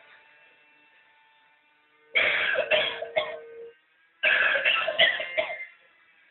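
Novelty coughing ashtray playing recorded coughing through its small speaker: a fit of coughs about two seconds in, and a second, longer fit about four seconds in.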